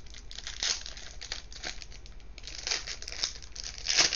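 Foil Pokémon card booster pack crinkling and tearing as it is ripped open by hand, with the loudest crackle just before the end.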